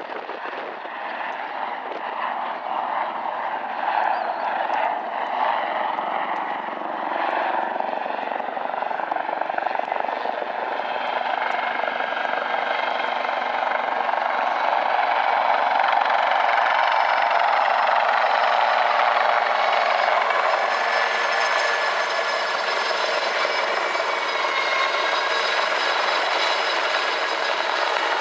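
Royal Navy Lynx helicopter in a display flypast, its rotor and engine sound growing steadily louder as it closes in. About halfway through, a high, steady turbine whine comes up over the rotor noise.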